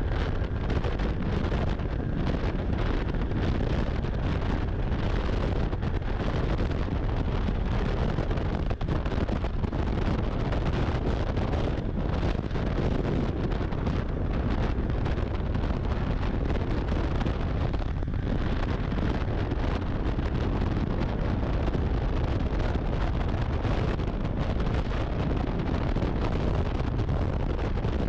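Steady wind buffeting the microphone on a moving snowmobile, with the machine running underneath as a constant low rumble.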